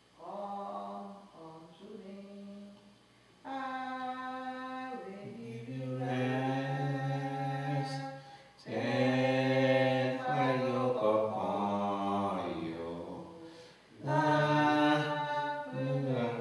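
A man singing a slow hymn unaccompanied, long held notes in phrases of a few seconds with short breaths between.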